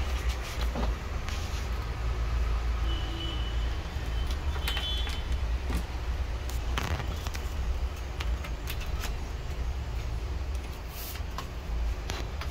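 Cables being plugged into the back of a desktop PC tower: scattered clicks and knocks of plugs seating and the metal case being handled, over a steady low rumble.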